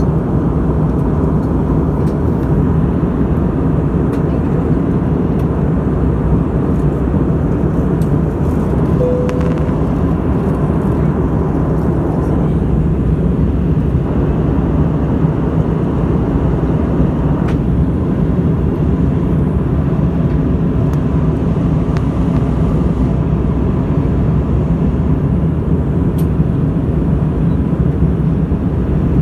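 Airplane cabin noise in flight: the steady, loud rumble of engines and rushing air, even throughout.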